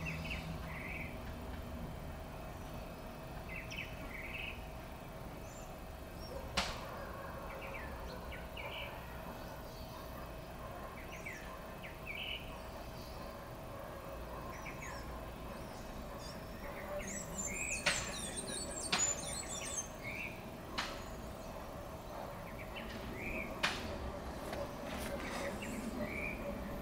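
Birds chirping in short scattered calls, with a busier flurry of high calls near the middle, over a steady low rumble and a faint hum; a few sharp clicks stand out.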